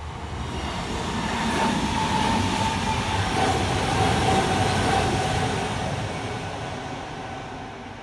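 Kintetsu 6020-series electric commuter train passing through a level crossing, growing louder to a peak about halfway and then fading as it goes by. The crossing's warning bell rings throughout.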